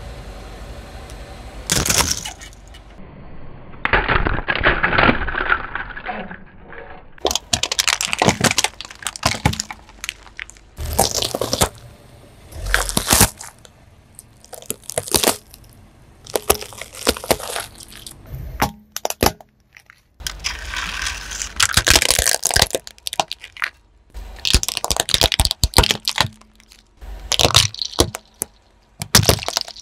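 A car tyre slowly rolling over and crushing a series of small objects: plastic syringes, soft red objects and Rubik's cubes. It gives clusters of sharp cracks, snaps and crunches as the plastic breaks, with short quieter gaps between them.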